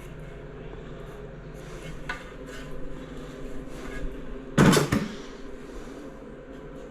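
A few light taps and clicks, then one loud knock a little past halfway, as a ceramic tile is handled and turned over onto a hard work surface. A steady low hum lies underneath.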